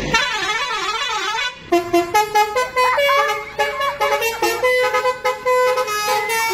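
Telolet bus horn, a multi-tone air horn: it warbles up and down about three times a second for a second and a half, breaks off briefly, then plays a tune of stepped notes.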